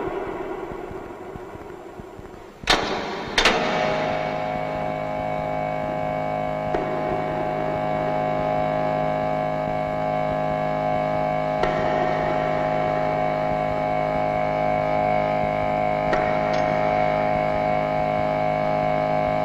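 Two sharp bangs close together about three seconds in, then a steady droning hum of several held tones, with a few faint clicks over it.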